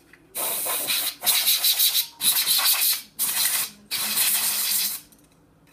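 Can of compressed-air duster spraying through its straw nozzle in five short hissing bursts with brief gaps, blowing dust out of a heat sink.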